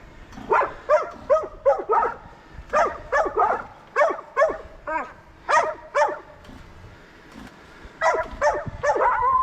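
A dog barking repeatedly, in quick runs of short barks with brief pauses between them.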